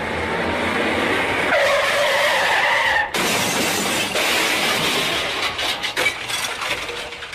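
A car crashing into a ditch: a rising screech that cuts off sharply about three seconds in, then rough crunching and scraping noise with a few sharp cracks, fading toward the end.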